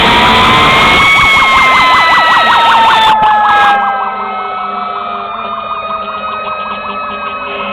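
Fire engine sirens: one wail siren slowly winds down in pitch, and a fast yelp siren sounds over it for the first three to four seconds. At about four seconds in, the yelp stops and the sound becomes quieter and duller.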